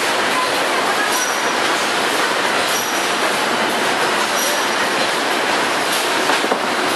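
Automatic detergent-pouch packaging line running: a steady, loud mechanical din of conveyors and moving mechanisms. A short, sharp high hiss-click repeats about every one and a half seconds as the machine cycles, with a couple of brief knocks a little after six seconds in.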